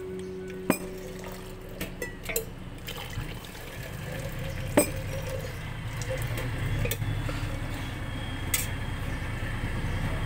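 Thai green tea being poured through a cloth tea filter into a stainless steel pot: steady pouring and splashing of liquid, a little louder after a few seconds, with three sharp metallic clinks of utensils against the pot.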